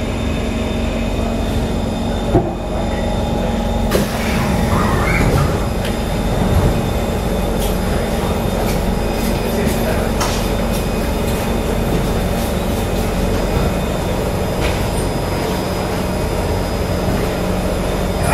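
Interior of a Kawasaki C151 metro car standing at a station, with a steady hum running throughout. The doors slide open about four seconds in, letting in more platform sound.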